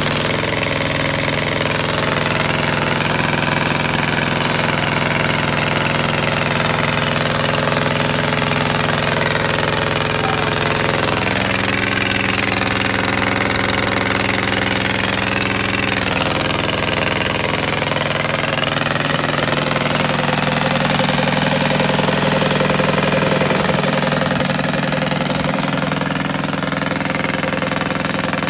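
Caterpillar D8 bulldozer's pony motor, the small starting engine, running steadily with a rattly, knocking beat. Its speed shifts a couple of times around the middle.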